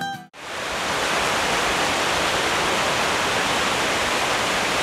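Heavy rain falling steadily, a dense even hiss that sets in a fraction of a second in.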